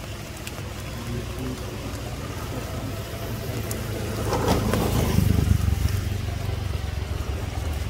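Motorbike engine passing by, growing louder as it approaches, loudest about halfway through, then easing off as it moves away.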